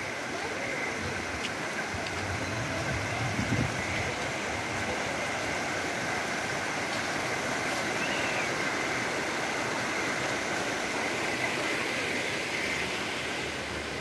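Shallow rocky stream rushing over boulders: a steady, even rush of water, with a brief low rumble about three and a half seconds in.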